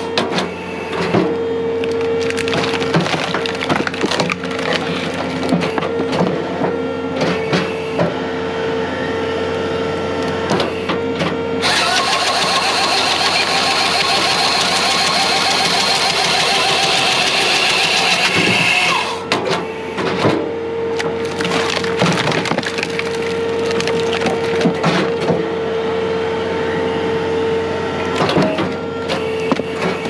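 Skid-steer-mounted Halverson HWP 150 firewood processor working logs: a steady hydraulic hum with repeated knocks and cracks of wood being moved and split, and a loud steady hiss lasting about seven seconds in the middle.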